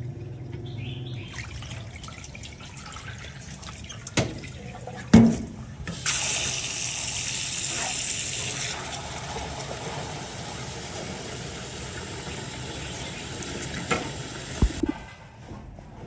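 Water running from a kitchen tap into a sink: a steady rush that starts about six seconds in and stops abruptly near the end, after a couple of knocks.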